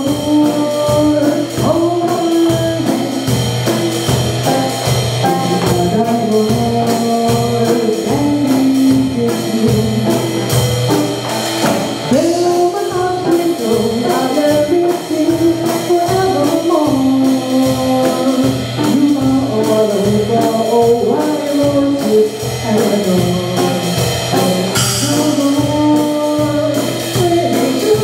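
Live jazz trio: a woman singing a melody, with acoustic guitar accompaniment and a cajón keeping a steady beat.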